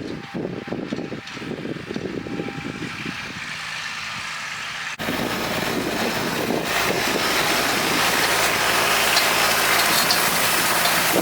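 Kubota tractor's diesel engine running as it pulls a hay tedder, with gusts of wind on the microphone at first. After an abrupt cut about five seconds in, the engine and the tedder are louder and fuller, and the sound keeps building as they come closer.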